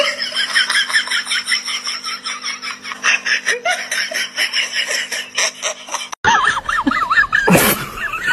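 Fast, repeated laughter for about six seconds. It stops abruptly, and a high, wavering whine follows, with one loud burst near the end.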